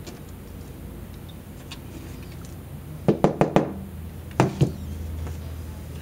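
Small sharp knocks and clicks of a screwdriver and tiny parts handled on an open iPhone 4S: a quick run of four a little past halfway, then two more about a second later.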